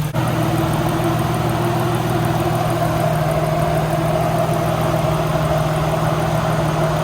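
Single-turbo Nissan VQ35 V6 of an Infiniti G35 idling steadily, with a steady rushing noise over it that starts suddenly at the outset.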